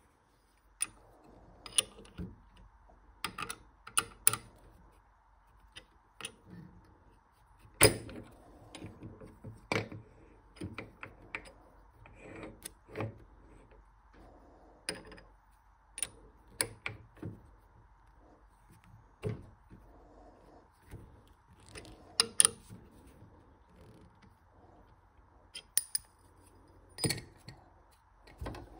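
Irregular sharp metallic clicks and knocks from a lathe's scroll chuck being worked with its chuck key while the wooden lid is held in the jaws, over a faint steady hum.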